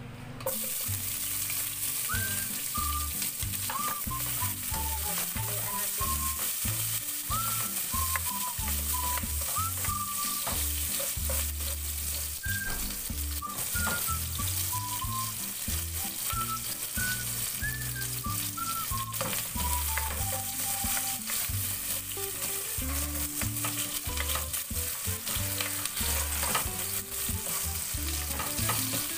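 Sliced onions sizzling in hot oil in a nonstick pot, starting about half a second in, with a spoon stirring and knocking against the pot.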